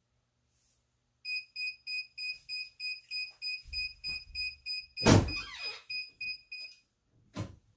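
Heat press timer beeping at an even pace, about three or four high beeps a second, signalling that the press time is up. About five seconds in, a loud thud as the press is opened, then a single knock near the end.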